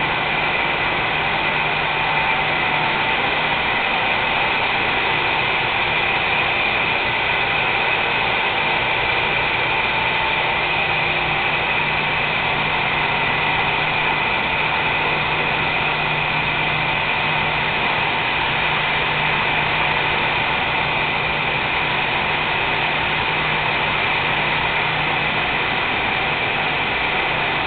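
Steady drone of shop machinery running without a break, with a few constant tones held over it.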